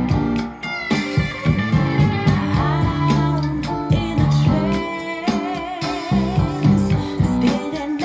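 A guitar-led song with drums and bass played through a pair of TEAC bookshelf speakers driven by a ZK-MT21 2.1 class-D amplifier module under a listening test.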